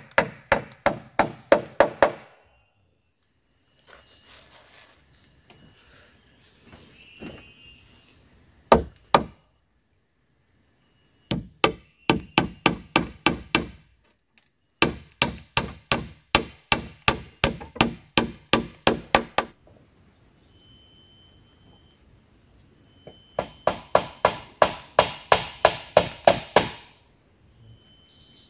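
Claw hammer nailing round wooden poles onto a hut frame: runs of quick, even blows about four a second, broken by pauses of a few seconds.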